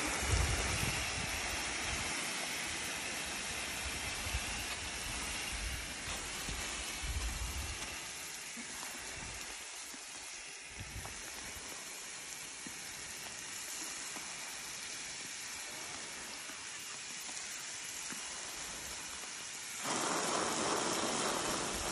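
Water spraying from a garden hose nozzle in a wide fan onto soil and grow bags, a steady hiss like rain that gets suddenly louder about twenty seconds in.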